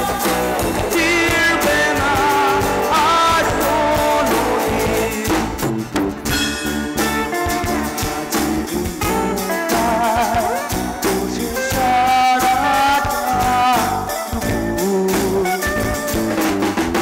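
Live rock band playing: a male vocalist singing over acoustic and electric guitars and a drum kit.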